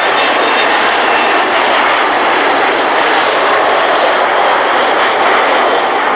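Boeing 727's three rear-mounted Pratt & Whitney JT8D turbofans running at display power as the jet climbs away in a banking turn: a loud, steady jet roar, with a thin high whine that fades out about a second in.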